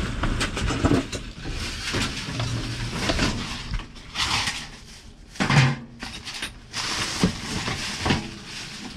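Objects being moved around while someone rummages through a dumpster: irregular knocks and clatter, with stretches of rustling.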